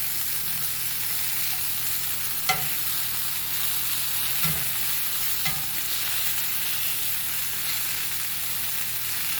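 Boneless, skinless chicken thigh frying in a pan, a steady sizzle. Three light clicks break in partway through, the first the loudest.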